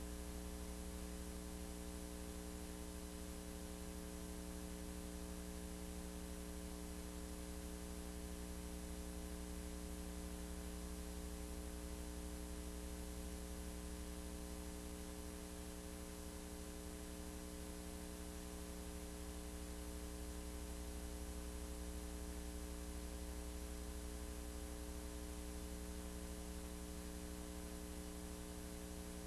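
Steady electrical mains hum with hiss, unchanging through the picture cuts: noise on the recording rather than the sound of the filleting machine.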